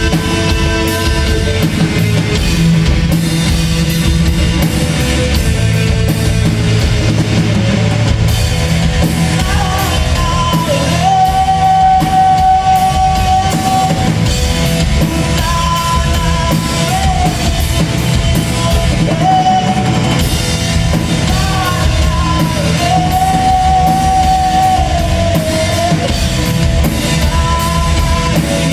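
Loud music with a dense, steady drum beat and a melody of long held notes that glide between pitches.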